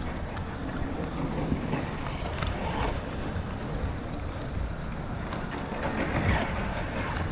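HO scale model diesel locomotive and passenger cars running on track: a steady low rumble with faint clicks and crackles.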